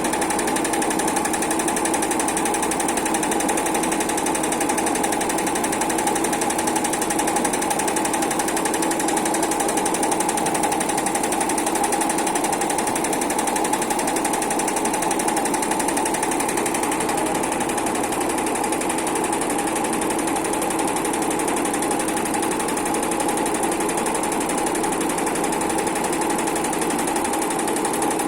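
Automatic heating-wire sewing machine running steadily, its needle stitching in a fast, even chatter over a constant hum.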